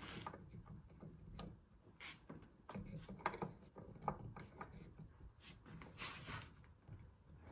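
Faint, scattered clicks and scrapes of a screwdriver working a light switch's mounting screw into its wall box.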